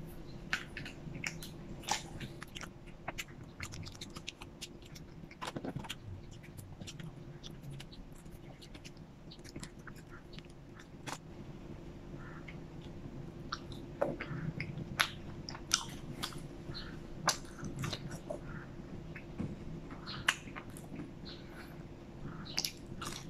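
Close-miked chewing of french fries dipped in sauce, with many short, sharp wet mouth clicks and lip smacks, over a faint steady low hum.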